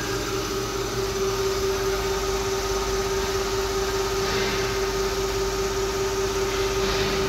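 Thyristor-controlled DC motor under a mechanical brake load, running steadily at about 1000 rpm: an even hum with one strong held tone that does not change pitch, since the tacho-generator feedback holds the speed while the load current rises.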